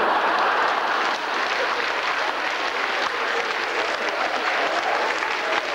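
Theatre audience applauding: a dense, even patter of many hands clapping.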